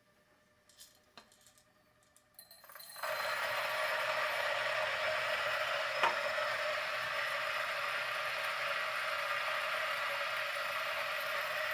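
Turin DF64V espresso grinder with 64 mm flat burrs running at 600 RPM: after a few light clicks, beans drop into the running burrs about three seconds in and a steady grinding noise sets in. A single sharp click sounds about six seconds in.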